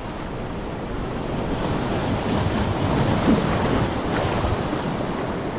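Ocean surf washing in over the rocky shoreline, one wave swelling louder in the middle and then receding.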